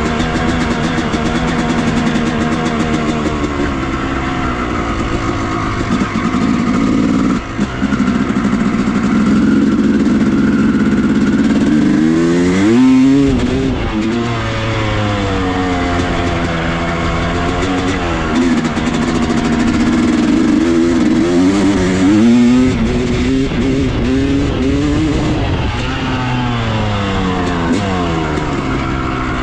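Yamaha YZ250 two-stroke single-cylinder dirt bike engine being ridden, its pitch rising and falling again and again as the throttle is opened and closed, with a brief dip about seven and a half seconds in. The bike has a freshly rebuilt transmission.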